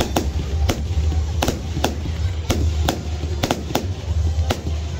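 Consumer firework cake firing shot after shot: a string of sharp bangs and pops, about two a second at uneven spacing, over a steady low rumble.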